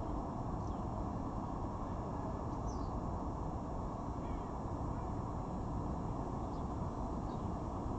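Faint, brief high bird chirps, each sliding downward, every second or two over a steady low background rumble.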